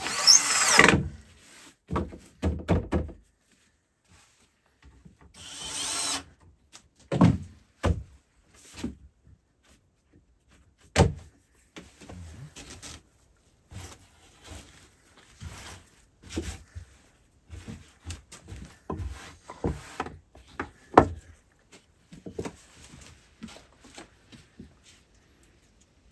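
Cordless drill/driver running in two short bursts, the first rising in pitch as it spins up, as the wooden table is fastened together, with sharp knocks of wood between and after. Later, softer rustling of a fabric tablecloth spread over the table, and light knocks as things are set on it.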